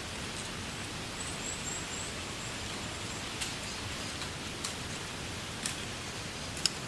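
Wind rustling through reeds: a steady hiss, with a few short sharp clicks in the second half, the loudest near the end. A faint high chirp sounds about a second in.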